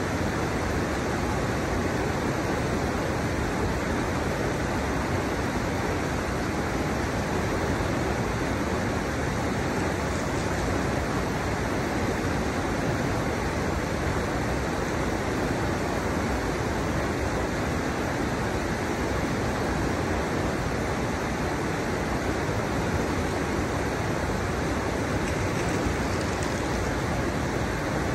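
River water rushing over the low drops of a stepped riverbed, a steady, even rush with no breaks.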